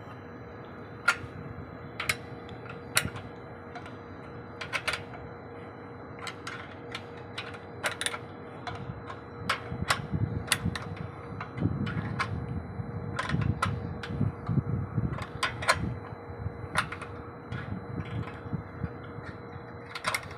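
Irregular sharp metallic clicks and taps from a spanner working the alignment bolts on a microwave antenna mount during fine alignment. A faint steady hum runs underneath, and low rumbling surges come in through the middle.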